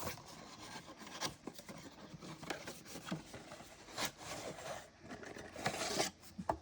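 Cardboard box and packaging rubbing and scraping as a vintage O-scale model train car is handled, with scattered light clicks and knocks.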